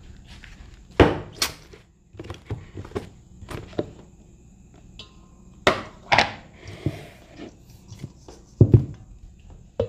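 Kitchen handling noises: a string of irregular knocks and thuds as utensils and containers are moved and set down. The loudest knocks come about a second in, twice around six seconds in, and near the end.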